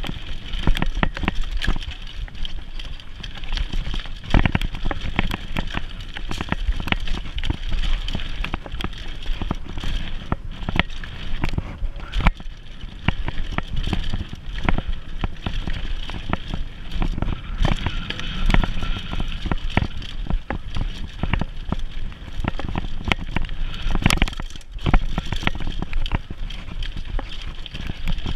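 Mountain bike riding fast down a dirt singletrack: a continuous rough noise of the tyres rolling over dirt and roots, with many clicks and knocks from the bike rattling over bumps.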